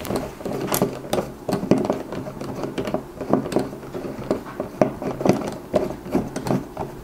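Hand ratcheting screwdriver driving a steel action screw into a rifle's floor plate and stock, its ratchet clicking in short irregular runs, several clicks a second, as the hand turns back and forth.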